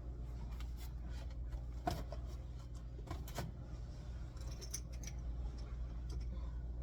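Scattered light clicks and knocks of pantry packages and containers being handled, with a couple of sharper clicks about two and three seconds in, over a steady low hum.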